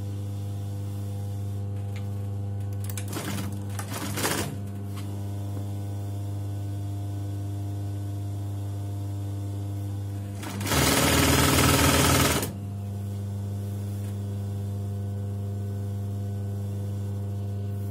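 Electric household sewing machine running in one burst of about two seconds, roughly two-thirds of the way in, stitching down a folded skirt hem. A steady low electric hum lies underneath throughout, with a couple of brief handling noises a few seconds in.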